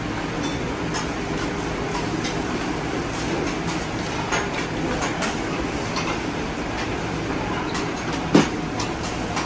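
Cooks' long spatulas scraping and clacking on a large round flat-top grill: scattered sharp clicks over a steady rumbling din, with one loud knock about eight seconds in.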